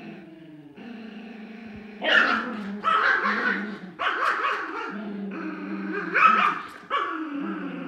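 Two small dogs play-fighting in a tug of war over a toy: a long, steady, pitched growl, broken by sharp barks about two seconds in and several more times after.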